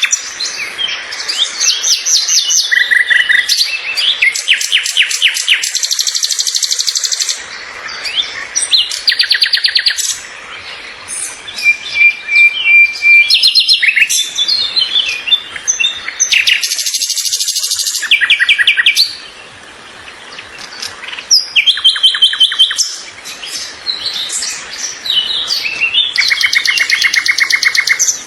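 Several birds singing at once: rapid trills and runs of quick repeated chirps overlapping throughout, with a short held whistled note about halfway through.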